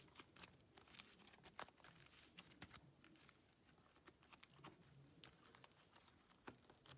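Near silence, with faint scattered soft crackles and ticks as a clay butter slime is stretched and folded by hand.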